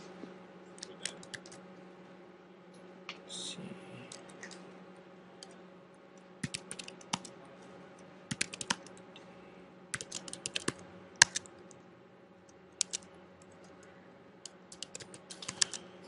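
Typing on a computer keyboard: short runs of keystrokes with pauses between them, over a steady low hum.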